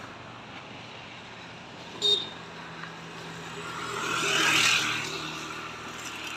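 A motor vehicle passing by on the road, getting louder to a peak about four and a half seconds in and then fading. A short high-pitched beep sounds about two seconds in.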